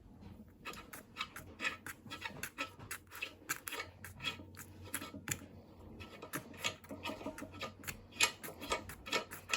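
Rapid scraping or scrubbing strokes of a hand tool on the Safetran mechanical crossing bell's parts during cleaning, several strokes a second with a short pause about six seconds in.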